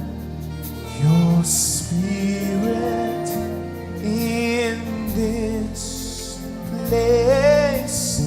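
Live gospel worship music: slow sustained chords with a singer's melismatic vocal lines.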